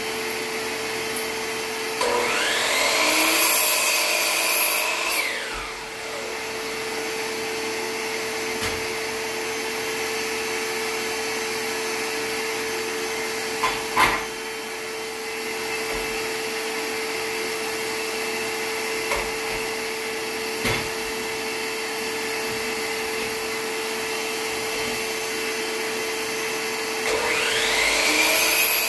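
A shop vacuum runs steadily while a DeWalt miter saw spins up about two seconds in, cuts through a wooden tongue-and-groove board and winds down. A sharp knock comes near the middle, and near the end the saw starts up again for the next cut.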